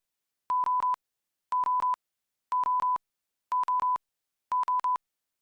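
Digital alarm-clock beeping from a countdown timer reaching zero: clusters of a few quick beeps on one steady pitch, repeating about once a second.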